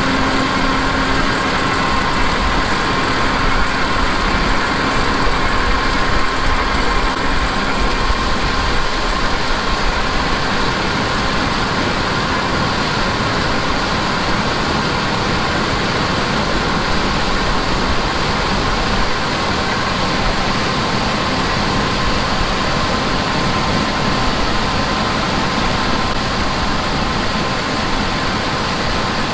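Heavy farm machinery running steadily, with a constant high tone over the engine noise.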